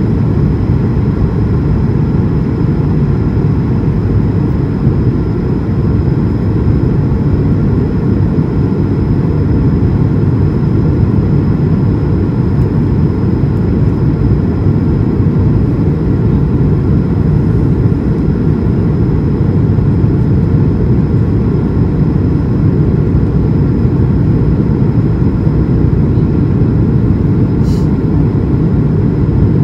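Steady cabin roar inside an Airbus A220-300 climbing after takeoff: its Pratt & Whitney PW1500G geared turbofan engines and the rush of air over the fuselage, with faint steady whining tones above the low roar. A single brief click sounds near the end.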